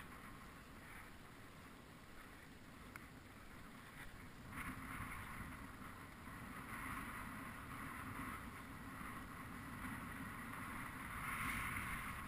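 Faint wind on the microphone and water lapping around a small fishing boat: a steady hiss that grows louder about four and a half seconds in and again near the end.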